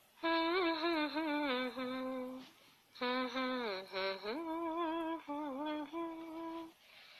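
A voice humming a wordless melody in two phrases, with held notes that bend and slide in pitch and a short break about two and a half seconds in.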